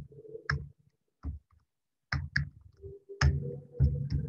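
Computer keyboard being typed, about seven separate keystrokes at an uneven pace.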